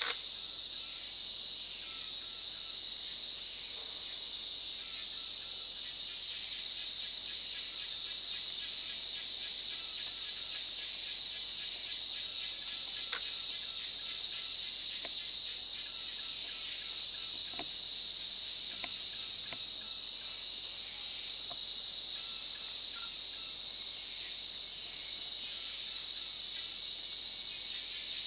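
Steady, high-pitched chorus of forest insects, with a few faint clicks.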